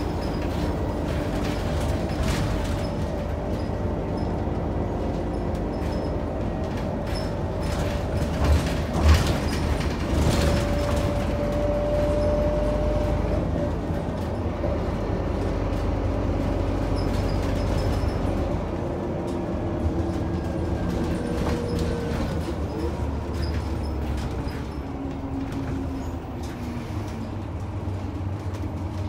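Scania K94UB bus heard from inside the cabin, its 9-litre six-cylinder Scania DC9 diesel and ZF five-speed automatic gearbox running under way. Steady engine and drivetrain tones slide down in pitch in the second half. The body rattles and creaks throughout, with a sharp knock about nine seconds in.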